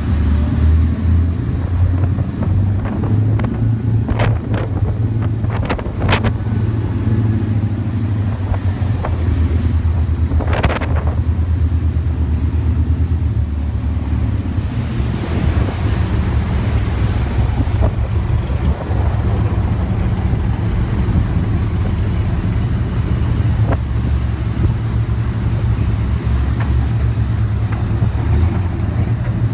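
Pilot boat's engine running with a steady, loud low rumble, with wind on the microphone and water rushing past the hull. A few brief clicks come about four to six seconds in.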